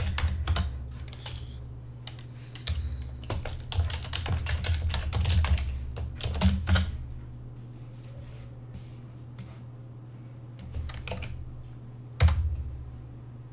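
Typing on a computer keyboard: a run of keystrokes over the first seven seconds, then a few scattered key presses and one louder click near the end, over a steady low hum.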